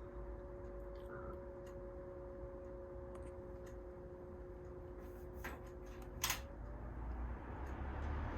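Air King PL20P box fan's Westinghouse motor running on low speed with a steady hum, with a few faint ticks and a sharp click about six seconds in, after which the hum tones die away.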